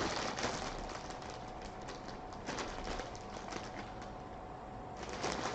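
Packaging being handled by hand: irregular light crinkles and clicks, quieter for about a second near the end.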